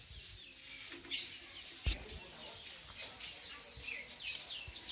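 Small birds chirping: repeated short, high calls, some sweeping down in pitch, with a single knock a little before the middle.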